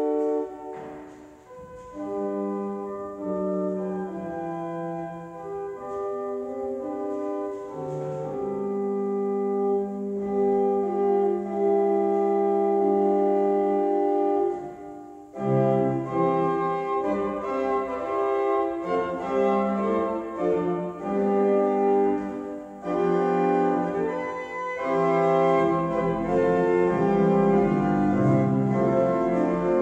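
Hook & Hastings opus 500 pipe organ being played: held chords with a moving upper line, breaking off briefly about a second in and again about halfway through, with low pedal notes joining near the end.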